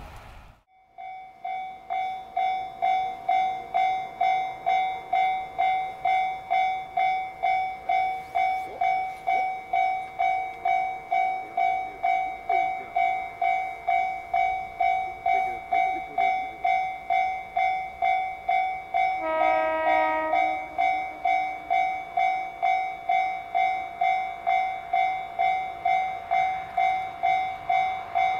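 Japanese level-crossing warning bell ringing steadily, about two strikes a second, as a JR Hokkaido KiHa 40 diesel railcar approaches; it starts about a second in. About two-thirds of the way through, the railcar sounds one short horn blast of about a second.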